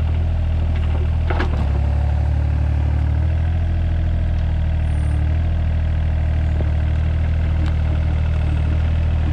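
Mini excavator's diesel engine running steadily under operation, with a single sharp knock about a second and a half in.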